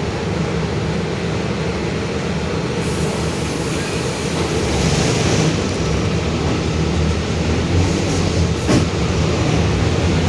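Mercedes-Benz OF-1721 BlueTec 5 city bus under way, its rear differential growling very loud as a steady low drone over the engine and road noise, growing a little louder partway through. A single sharp click sounds near the end.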